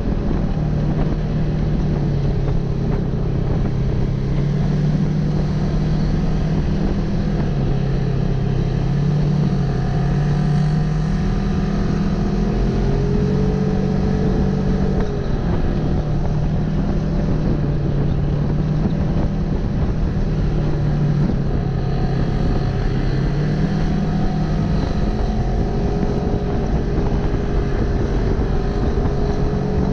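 Polaris RZR XP 1000 side-by-side's parallel-twin engine running while driving, its pitch stepping up and down with the throttle.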